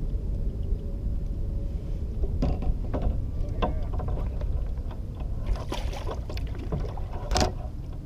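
Wind rumbling on the microphone, with a few light knocks and splashes from the kayak and its gear; the sharpest knock comes near the end.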